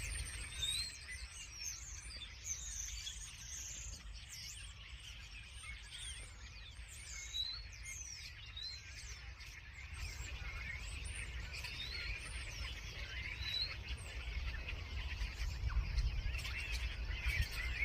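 Several small birds chirping and singing, many short overlapping calls and quick high pitch glides, over a steady low rumble that grows a little louder near the end.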